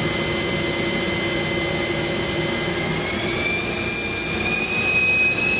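Haas ST-15Y CNC lathe spindle drive running with a steady whine whose pitch rises about three seconds in and edges up again near the end as the spindle speeds up.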